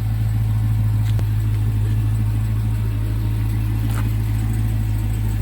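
Steady low mechanical hum, unchanging throughout, with one faint click a little over a second in.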